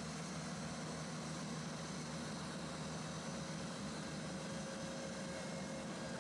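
Compact tractor engine and a hydraulically driven humus GLS flail mulcher running steadily while cutting roadside grass. An even, unbroken running noise without gearbox whine, since the mulcher rotor is driven by a hydraulic motor.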